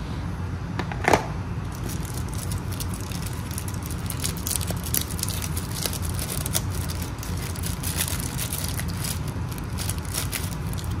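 Protective plastic film being peeled off a sticky camera lens guard and handled in the fingers: many small crackles and clicks, with one louder click about a second in, over a steady low hum.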